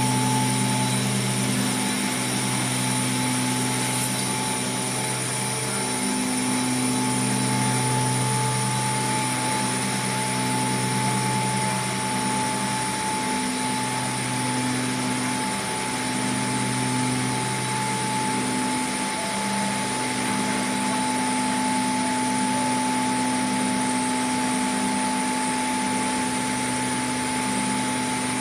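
Vacuum molding production line running: a steady machine roar with constant whining tones, and a low hum that cuts in and out every couple of seconds.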